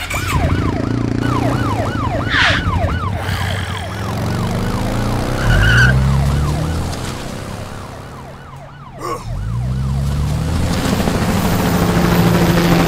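Police siren in a fast up-and-down yelp, repeating several times a second and fading out about halfway through.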